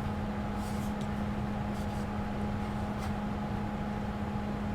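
Steady machine hum with a constant low tone and a fainter higher tone, with a few faint light ticks.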